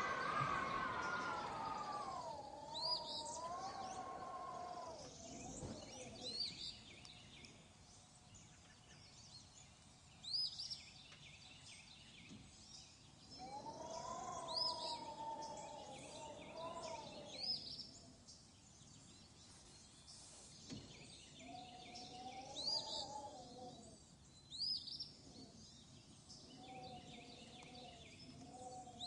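Small birds chirping, short quick upward chirps every second or two. A lower wavering tone with overtones rises and falls in long stretches of several seconds, four times over.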